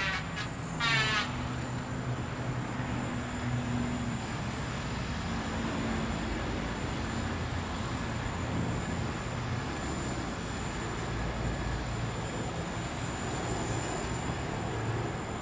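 Steady engine and road noise, with a low hum that shifts a little in pitch, and a brief warbling chirp in the first second.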